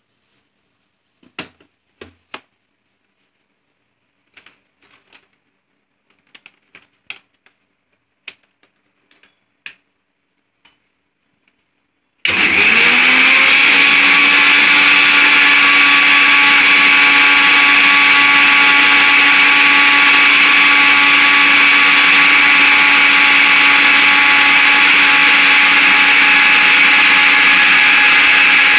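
A few light clicks and knocks of the steel jar being fitted to an electric mixer grinder, then about twelve seconds in the mixer's motor switches on abruptly and runs at a steady speed with a loud whine, grinding aloe vera for juice. Right at the end its pitch starts to drop as the motor slows.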